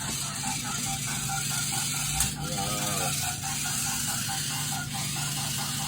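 Toy remote control car's small electric motor and gears whirring as it drives over a tiled floor, with a fast, even mechanical ticking.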